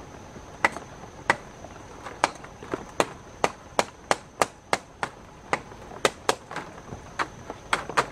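Quick series of sharp knocks, a hand tool striking wood, about two to three a second at an uneven pace.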